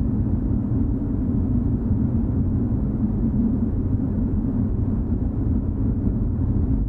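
A steady low rumbling drone with no distinct events, typical of a dark horror ambience sound effect.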